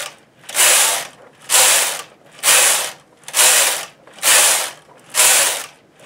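Brother knitting machine carriage pushed back and forth across the needle bed, knitting one row per pass. Each pass is a rasping mechanical clatter lasting just under a second, with short pauses between them as the carriage changes direction, about seven passes in all.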